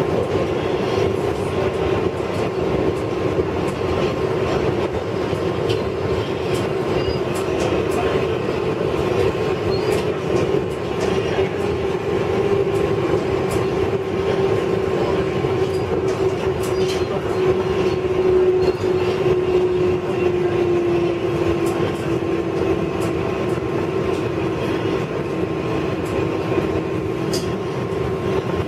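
Inside an R188 subway car on the 7 train running at speed through a tunnel: a steady rumble of wheels on rail with a continuous whine that drops slightly in pitch about two-thirds of the way through, and scattered clicks from the track.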